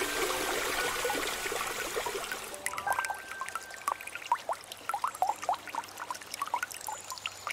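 Large pot of jaggery water at a rolling boil: a steady bubbling hiss for the first two and a half seconds or so, then separate bubbles popping and gurgling.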